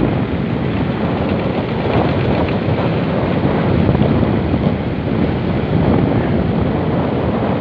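Wind rushing steadily over the microphone of a moving motorcycle, with the motorcycle's running and road noise mixed in.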